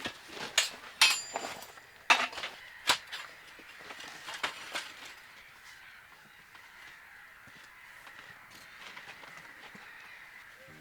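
A few sharp knocks and clinks in the first three seconds, with fainter ones around the middle, over a steady soft hiss.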